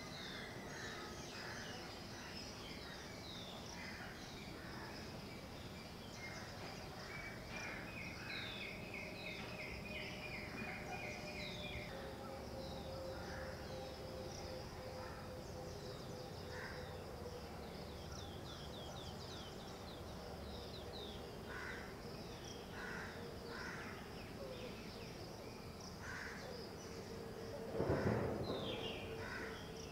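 Outdoor ambience of small birds chirping again and again, with a quick trill of repeated notes about a third of the way in and a faint steady hum that slowly sinks in pitch through the second half. Near the end a loud, brief sound about a second long stands out as the loudest thing.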